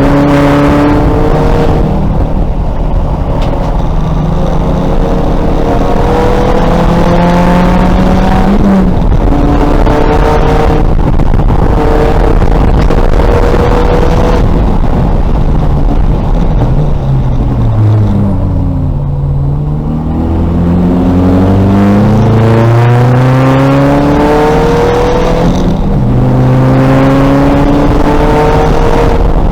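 2000 VW Golf race car's engine under hard acceleration, its pitch climbing through the gears with a short break and drop at each upshift. About two-thirds of the way through, the revs fall away under braking and downshifts, then climb through the gears again.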